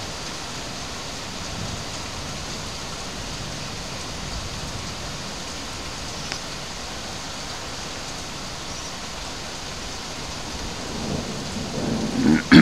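Steady heavy rain of a thunderstorm, with a low rumble of thunder about two seconds in.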